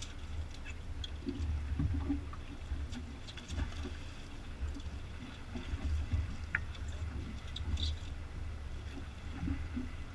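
Water lapping and sloshing against a small open boat's hull over a low, uneven rumble, with scattered faint clicks.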